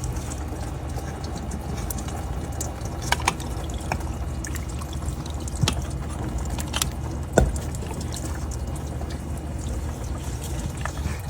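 Coolant pouring and trickling out as the leaking heater hose is disconnected, with scattered sharp clicks and knocks of tools and hose clamps.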